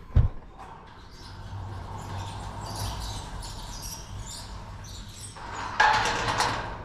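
Wrought-iron sliding gate being pulled shut by hand: a sharp clunk at the start, then metal scraping and rattling as it rolls along its track, louder for the last second as it comes closed.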